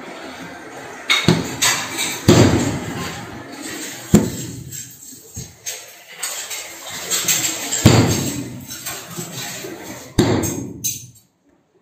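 Ball of dough being kneaded and slapped down on a silicone mat over a steel counter: several heavy slaps, with rubbing and pressing between them. The sound cuts off suddenly shortly before the end.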